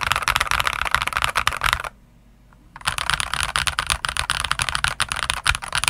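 Fast typing on a modded Eyooso K-620 hot-swap TKL mechanical keyboard with Akko CS Rose Red linear switches and YMDK PBT keycaps. The case is dampened with hot-glued pennies, velvet and two layers of Tempest mod, and the stabilizers have the plumber's mod. The typing stops about two seconds in and starts again about a second later.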